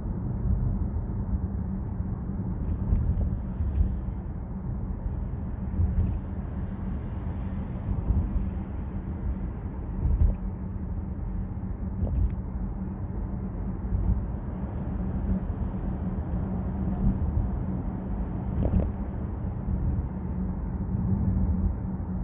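Chevrolet Trax driving, heard from inside the cabin: a steady low rumble of road and engine noise with a constant hum, broken by a few light thumps several seconds apart.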